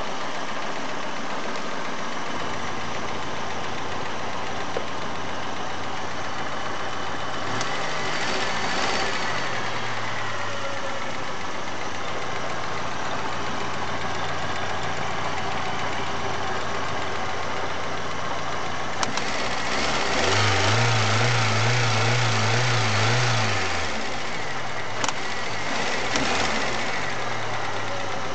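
Chery Amulet car engine idling, then revved: a short rise and fall about eight seconds in, a longer raised hold past the middle, and a few quick blips near the end. The owner reports that it knocks when the revs are raised sharply and vibrates too much at idle.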